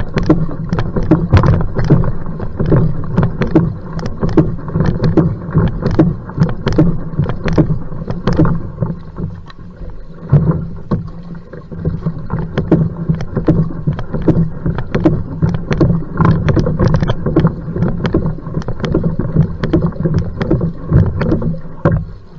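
Va'a outrigger canoe paddle strokes at sprint pace: a steady run of sharp catches and water splashes over a constant low rumble of water and hull.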